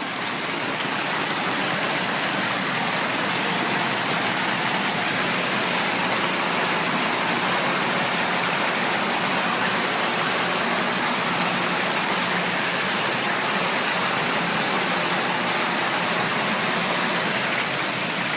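Water gushing steadily from a broken copper pipe, a continuous rushing hiss.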